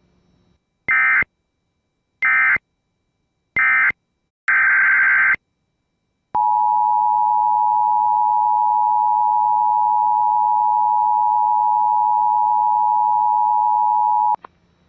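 Emergency Alert System data tones: three short screechy digital bursts about a second apart (the end-of-message code), then one longer burst of the SAME header for the next alert. After that the two-tone EAS attention signal sounds steadily for about eight seconds and cuts off abruptly.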